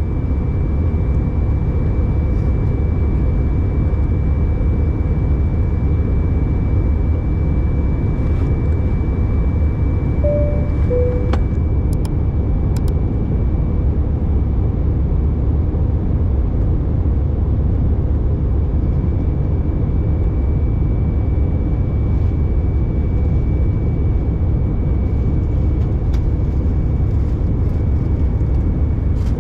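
Steady roar of an Airbus A319's passenger cabin in flight: engine and airflow noise, with a faint steady high whine. A short two-note falling chime sounds about ten seconds in.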